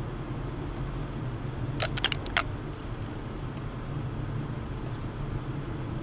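Steady road and engine noise inside a moving car's cabin. About two seconds in, a quick run of five or so sharp clicks within half a second.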